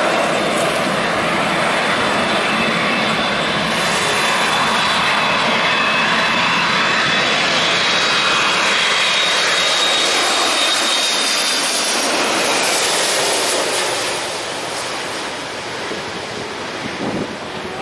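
Twin-engine wide-body jet airliner on a low landing approach, its engines loud and rushing with a high whine as it comes in overhead. The noise drops off after about fourteen seconds as the jet passes over and away toward the runway.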